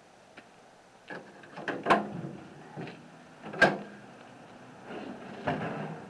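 Chevrolet pickup's tailgate being unlatched and lowered: a run of metal clunks and knocks, the two loudest about two seconds and three and a half seconds in.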